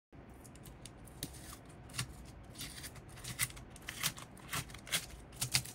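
Aluminium foil tape being peeled off the back of a 3D printer heated bed plate: irregular crinkling and crackling.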